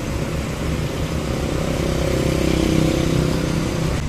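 Motorcycle engine running on the move, with road and wind noise; its note rises a little and gets slightly louder about two seconds in.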